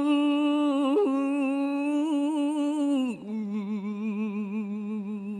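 Solo male voice chanting Khmer smot, holding one long wavering note, then sliding down to a lower held note about three seconds in.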